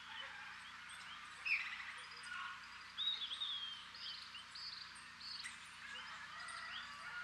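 Faint outdoor birdsong: several birds chirping and whistling in short calls, the loudest a quick falling call about a second and a half in and a whistled phrase about three seconds in.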